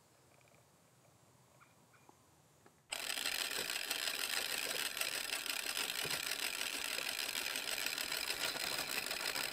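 Near silence with a few faint ticks, then, about three seconds in, a winch motor starts abruptly and runs with a steady whir as it draws in the cable and rolls a log in a chain parbuckle sling.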